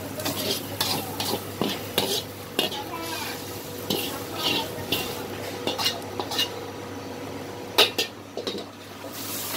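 Metal wok ladle scraping and clanking against a hot wok as stir-fried noodles are scraped out onto a plate, with some sizzling; two sharp clanks about eight seconds in, over a steady hum.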